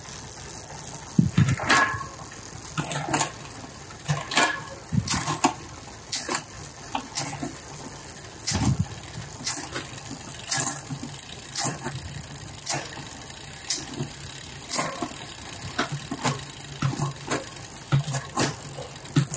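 Bicycle chain running over the cassette and rear derailleur pulleys of a Shimano Ultegra 11-speed drivetrain as the pedals are turned by hand, with sharp clicks about once a second as the derailleur shifts the chain across the cogs. The chain hesitates on upshifts and jumps a little on downshifts, a sign that the derailleur cable is a hair too loose.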